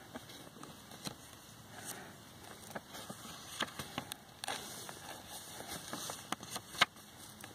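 Paper journal pages being turned by hand: faint rustling with scattered sharp crackles and ticks, the sharpest a little before the end.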